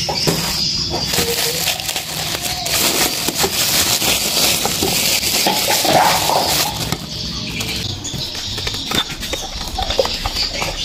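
A plastic bag rustles and crinkles as ears of sweet corn are handled. Near the end a knife slices the kernels off a corn cob with short crunching cuts.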